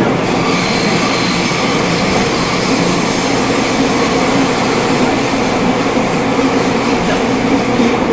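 Fukuoka City Subway 2000-series train running steadily through a tunnel, heard from inside the passenger car: a continuous rumble of wheels on rail and running gear with a faint steady whine over it.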